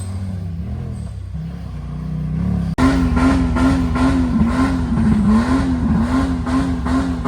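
Music, cut off abruptly about three seconds in, then a loud off-road vehicle engine running hard with a steadily wavering pitch.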